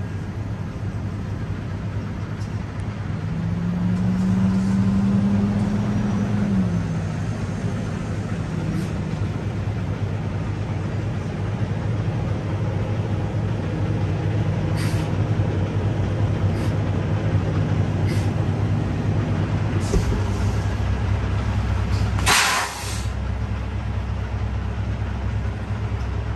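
Semi-truck diesel engine idling steadily, its note rising and falling back for a few seconds near the start. A few sharp clicks follow, and near the end comes a loud, short air-brake hiss.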